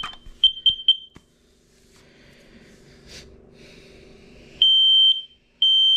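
Kidde KN-COSM-BA combination smoke and carbon monoxide alarm sounding during a test-button test: a few short high beeps in the first second, then, after a quieter stretch, loud high-pitched beeps about half a second long starting near the end, one a second. This is the smoke-alarm signal, which this unit gives before its carbon monoxide signal.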